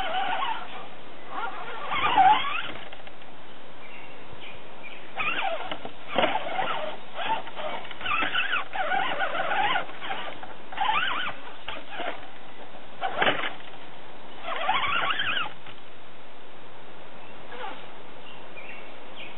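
Axial AX10 RC rock crawler's electric motor and gear drivetrain whining in short throttle bursts as it climbs over rocks. The pitch wavers up and down within each burst, with quiet gaps between them.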